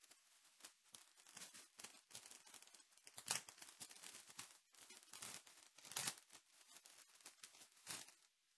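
Foil trading card pack wrapper being torn open by hand: faint crinkling throughout, with a few louder rips, one about a third of the way in, one around six seconds and one near the end.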